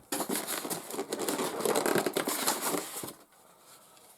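Plastic packaging crinkling and rustling as it is handled for about three seconds, then it stops.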